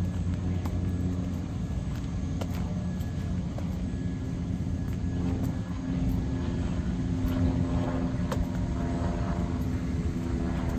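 An engine droning steadily, stepping up to a higher pitch about halfway through, with scattered light clicks.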